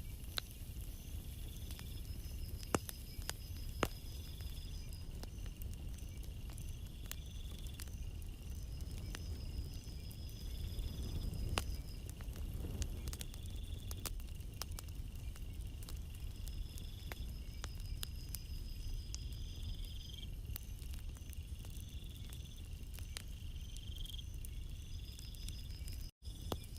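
Night insects chirping in repeated trills a second or two long, over a steady low wash of gentle sea waves on a beach that swells once about halfway through.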